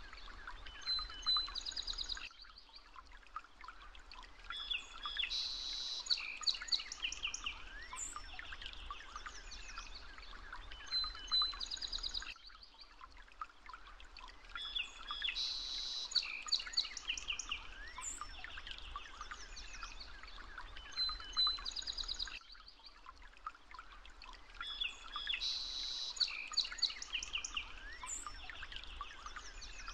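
Recorded birdsong: many birds chirping and trilling over a steady background hiss. It is a loop, with the same ten-second stretch repeating three times.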